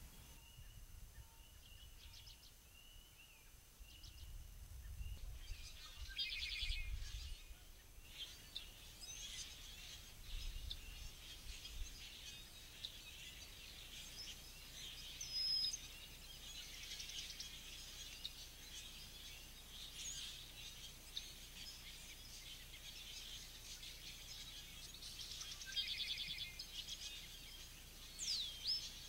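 Several wild songbirds singing and calling together in a dawn chorus: scattered short high chirps, with a fast trill about six seconds in and another near the end. A low rumble sits underneath for the first dozen seconds.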